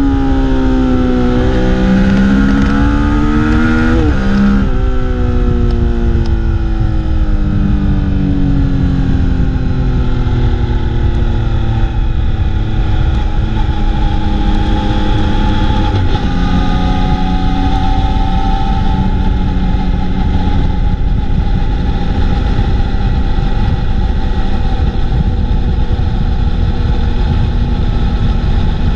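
Motorcycle engine under way, heard from the bike itself: the revs rise for the first few seconds, jump at a gear change about four and a half seconds in, then fall away slowly and settle into steadier running. Wind rushing over the microphone throughout.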